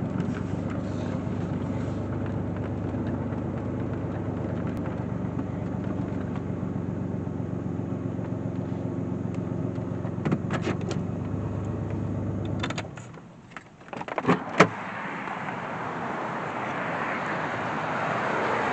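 The 4.3-litre V6 engine of a 2002 Chevrolet Blazer ZR2 running steadily, then shutting off abruptly about two-thirds of the way through. A few sharp clicks and knocks follow, then gusting wind noise on the microphone.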